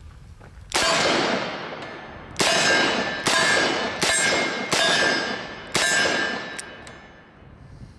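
Six shots from a Smith & Wesson 629 5-inch .44 Magnum revolver. Each shot is followed by the ringing clang of a struck steel target. The first shot stands alone, and the other five follow about one every second.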